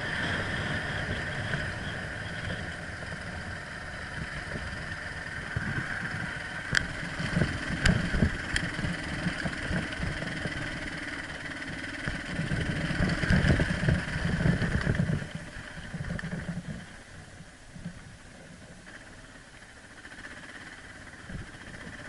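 Dual-sport motorcycle engine running as it rides, getting louder for a few seconds about two-thirds of the way through, then dropping to a lower, quieter running near the end. A few sharp clicks sound near the middle.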